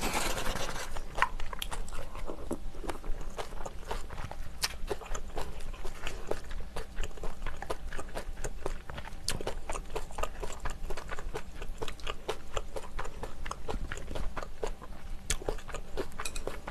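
Close-miked eating of sundae gukbap, Korean blood-sausage and pork rice soup: a sip of broth in the first second, then steady chewing full of small wet mouth clicks and smacks.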